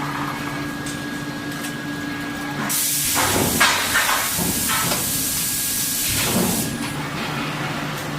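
Steady factory machine hum, then a loud hiss starting about three seconds in and lasting about four seconds before cutting off.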